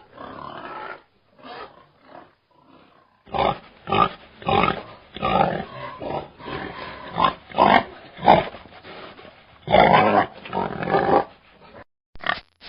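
Pigs calling: a few faint short sounds, then from about three seconds in a run of loud short calls roughly one a second, with one longer call about ten seconds in.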